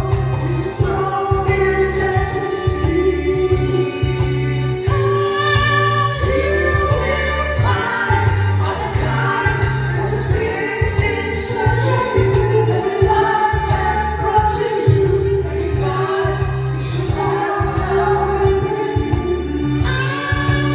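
A song playing: singing over a steady, pulsing bass beat.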